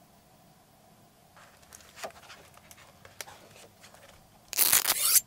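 A book being slid out from between others on a shelf: faint rustling and a few light ticks, then near the end a loud, brief rubbing scrape of the book against its neighbours.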